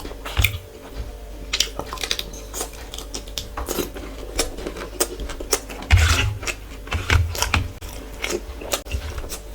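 Close-miked eating sounds: irregular chewing, biting and small crunches with wet mouth clicks. There are a couple of heavier low bumps about six and seven seconds in.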